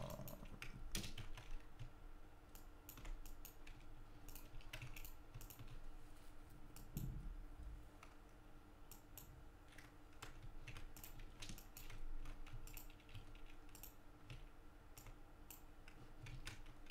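Faint, irregular clicking of a computer keyboard and mouse as a vector drawing is edited, over a faint steady hum.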